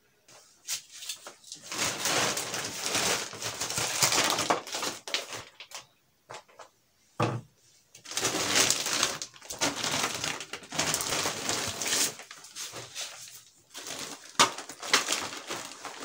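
A shopping bag rustling and crinkling as produce is handled and taken out, in three long bouts, with a single knock about seven seconds in.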